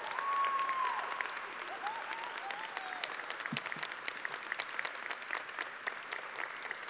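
An audience applauding steadily with dense clapping. A loud, high held cheer comes just after the start, and a few shorter wavering cheers follow over the next couple of seconds.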